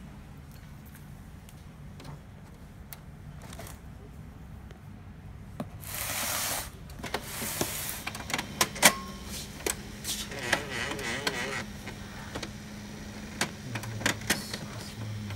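HP LaserJet Pro M203dn laser printer running a print job: from about eight seconds in its motor hums steadily under a string of sharp clicks, with a wavering whine twice. This is the odd printing noise the owner presents as the printer's fault.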